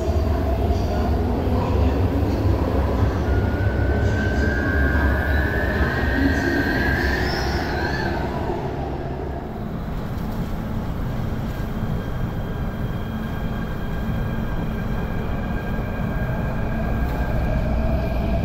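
Electric metro train running, a heavy rumble with a high wheel squeal from about four to eight seconds in. After that comes a steadier running rumble with a thin steady whine and a tone rising near the end, as heard aboard a moving train.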